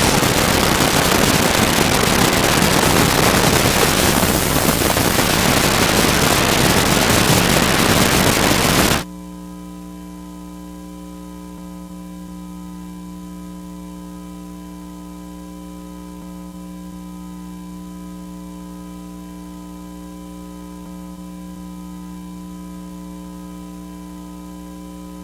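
Loud television static hiss that cuts off suddenly about nine seconds in. It gives way to a steady electrical buzz of several held tones, the sound of a broadcast signal failing and dropping to a dead carrier.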